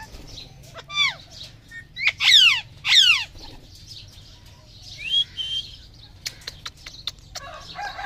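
Rose-ringed parakeets giving harsh, screeching calls that sweep downward in pitch. A call about a second in is followed by a loud cluster of calls between two and three seconds in, and a shorter call about five seconds in. A few sharp clicks follow near the end.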